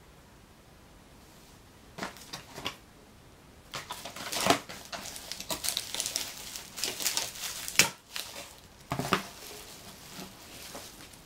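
Rummaging by hand through a box of packaging: irregular crinkling rustles with small clicks and knocks. They start about two seconds in and are busiest in the middle, with a couple of sharper knocks.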